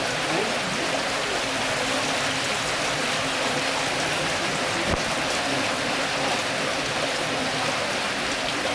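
Rushing stream water, a steady hiss, with a single sharp knock about five seconds in.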